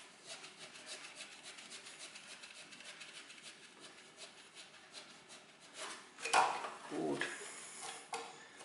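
Faint, rapid clicking and rubbing of hand tools and metal parts being worked on the car, with a couple of louder knocks about six and seven seconds in.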